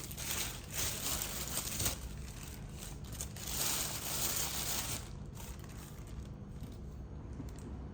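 Cloth bag rustling as tomatoes are handled and put into it, uneven for about five seconds and then quieter.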